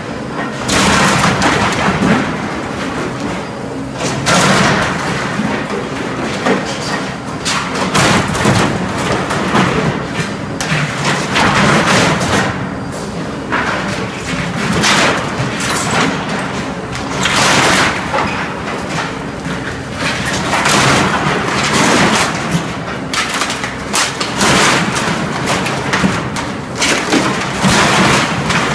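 Cat 226B skid steer loader's diesel engine running while its grapple crushes and tears apart wooden shelving racks: repeated irregular crashes and thuds of breaking, falling wood.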